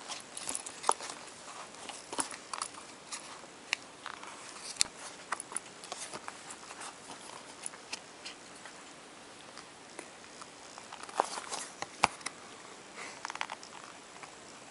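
Hands flexing the rubber of a Type A-14 oxygen mask and pushing an ANB-M-C1 microphone into its recess: irregular rubbing and small sharp clicks, with the two loudest clicks about a second in and near the end.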